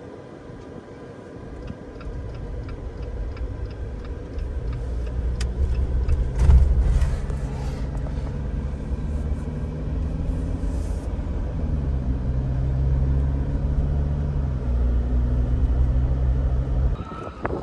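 Car driving, heard from inside the cabin: a steady low engine and road rumble whose pitch steps up and down as the car speeds and slows. There is a run of light clicks early on and a thump about six seconds in.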